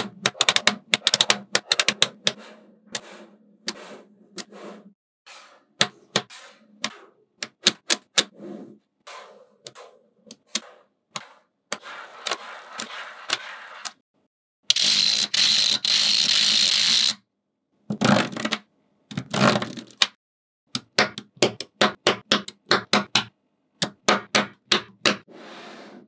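Small magnetic balls clicking and snapping together, in quick runs of clicks and single snaps. About two-thirds of the way through, a continuous rattling noise lasts for about two and a half seconds.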